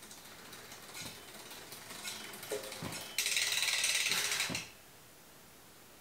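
Bicycle freehub ratchet ticking rapidly for about a second and a half as the crank is turned on the stand-mounted gravel bike, after a few faint light clicks.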